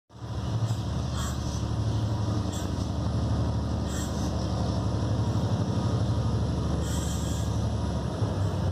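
Diesel engines of an approaching freight train's lead locomotives, EMD GT22s, running with a steady low drone. A few brief high-pitched sounds come on top, about a second in, at about four seconds, and again around seven seconds.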